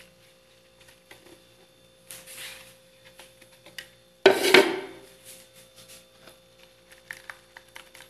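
The last of the blended juice is poured from a plastic blender jar into a metal mesh strainer, with a short splashing hiss a couple of seconds in. About four seconds in, the blender jar gives one loud knock that rings briefly.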